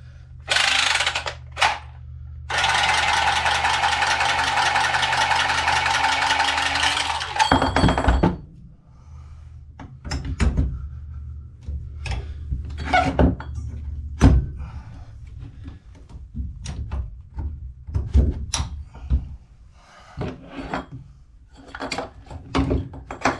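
A power tool runs in a short burst, then steadily for about five seconds before stopping. This is followed by scattered clanks and knocks from tools and metal fittings being handled.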